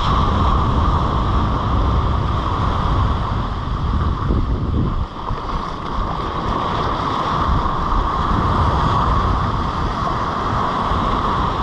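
Shallow surf foaming and washing in and out on a sandy beach, with wind buffeting the microphone. A steady, loud rush of water and wind.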